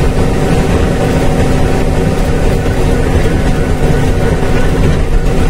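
Old Scania truck's diesel engine running steadily at road speed, heard from inside the cab: a loud, even drone with a constant hum and road noise.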